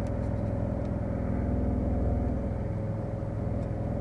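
Car engine idling, a steady low hum heard from inside the cabin.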